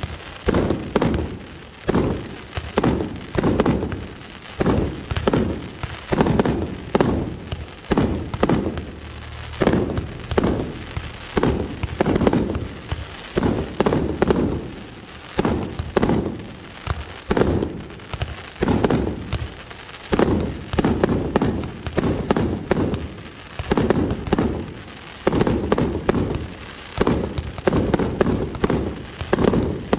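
Fireworks display: firework bursts going off in a continuous barrage, more than one loud boom a second, each followed by a short rumble and crackle.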